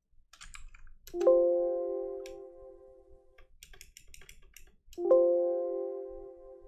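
An electronic computer alert chime sounds twice, about four seconds apart, each a bell-like tone that fades away over about two seconds. Computer keyboard typing clicks come before and between the chimes.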